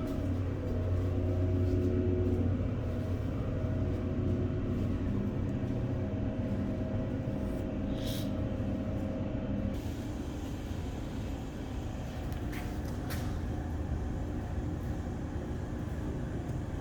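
Steady low mechanical hum with several held tones that drop out about ten seconds in, and a few short sharp sounds partway through.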